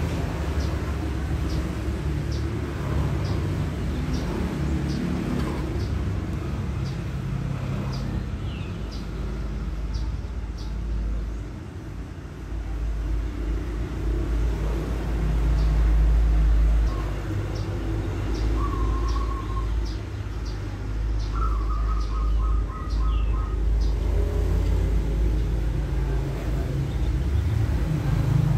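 A low, uneven rumble, swelling around the middle, with birds chirping faintly over it: short high chirps repeating throughout and a brief trill about three quarters of the way in.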